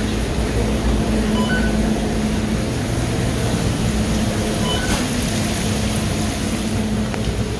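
Steady rushing noise with a low, even hum, like kitchen machinery or running water, and a faint short high beep about every three seconds.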